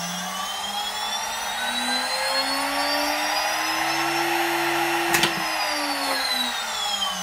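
1.5 kW CNC router spindle, driven by a variable frequency drive, whining as it spins up with a rising pitch. About five seconds in there is a sharp click as the emergency stop is pressed, and the whine then falls in pitch as the spindle winds down.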